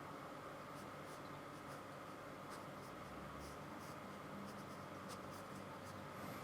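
Faint, irregular scratching strokes of a paintbrush working acrylic paint onto canvas, over a steady faint hum.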